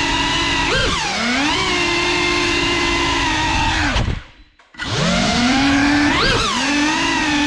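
GEPRC FPV drone's brushless motors and propellers whining, the pitch rising and falling as the throttle changes. About four seconds in the motors cut out almost completely for about half a second, then spin back up with a rising whine.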